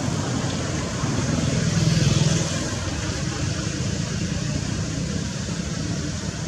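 Steady rumble of road traffic, growing louder about two seconds in as a vehicle passes.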